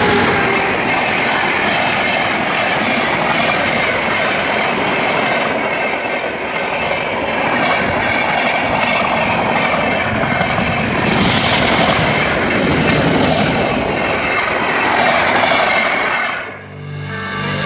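An electric-hauled passenger express running at speed: a loud, steady rush and rattle of its coaches' wheels on the rails. The noise drops away suddenly near the end.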